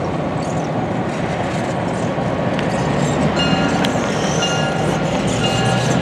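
Diesel switcher locomotive running steadily as it rolls along the track, its engine drone and wheel noise continuous. From about halfway through, a high ringing tone sounds in repeated short strikes.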